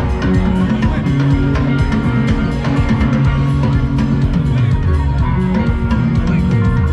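Funk jam band playing live: electric guitar, bass and drum kit in a steady groove, heard from within the audience.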